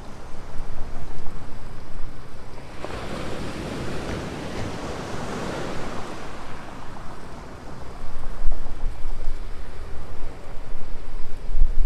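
Ocean surf breaking and washing up a sandy beach, with one wave's wash swelling and fading in the first half. From about two-thirds of the way in, wind buffets the microphone with a loud low rumble.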